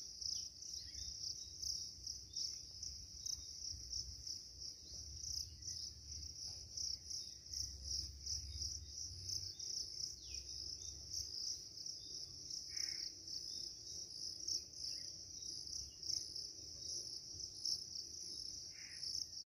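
Insects chirring in a continuous, high-pitched drone with a slight pulse.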